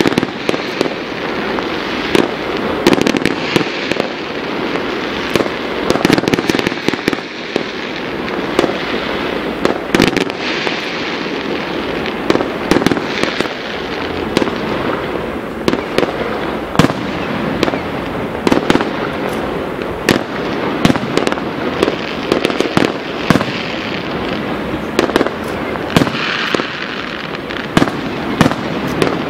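Fireworks display: many sharp bangs and cracks at irregular intervals, several a second, over a steady background haze.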